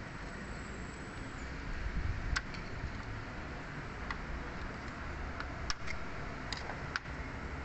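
A few faint, scattered metal clicks as a flat screwdriver tip is worked against the snap ring inside a rear brake caliper piston, checking that it is seated, over a steady low background hum.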